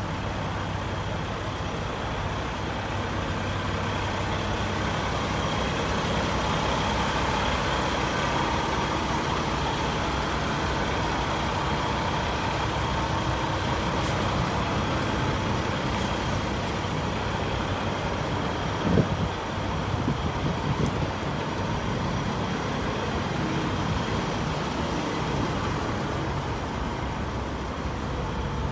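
Heavy diesel truck engine idling steadily, with one short knock about two-thirds of the way through.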